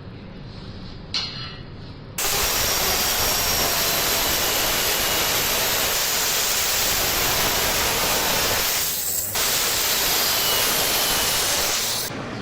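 Stick (electric arc) welding: a brief arc strike about a second in, then the arc burns with a loud steady hiss, breaks off for about half a second near the three-quarter mark, restarts, and stops near the end.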